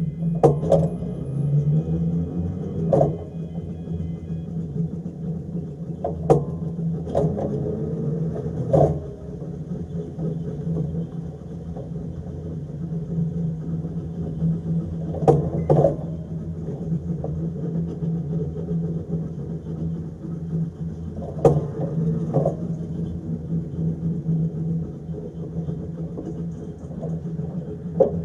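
Narrow-gauge electric tram running along the track: a steady low hum, broken by sharp clicks as the wheels cross rail joints, several of them coming in pairs under a second apart.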